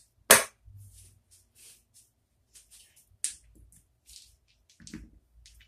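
Poker chips clicking against each other as they are picked up, stacked and set down on a table, with one sharp clack about a third of a second in and lighter clicks after it.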